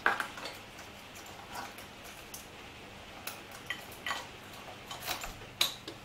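Scattered light clicks and clinks, about ten of them over a few seconds, the sharpest right at the start: small handling noises as someone moves about beside a motorcycle.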